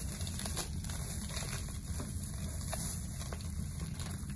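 Liquid from a packaged cow eye draining and splashing into a stainless-steel sink: a steady trickling hiss with a few faint taps from handling.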